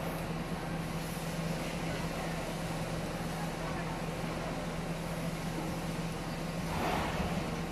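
Steady machinery hum with a constant low drone and a fainter higher tone, and a brief louder rush of noise near the end.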